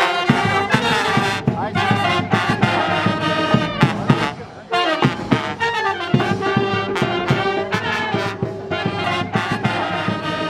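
Military brass band playing a march: trumpets, clarinets and sousaphones over a steady drum beat. The playing briefly drops away about four seconds in, then comes back in full.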